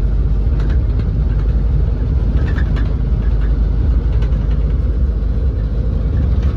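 Steady low rumble of a moving taxi: engine and road noise heard from inside the vehicle.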